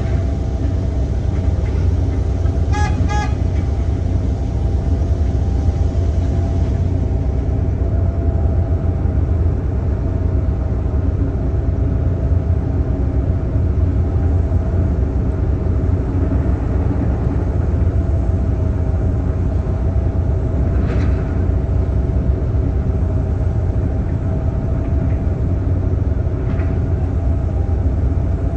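Heavy diesel construction machinery running steadily. A vehicle horn gives a short toot about three seconds in.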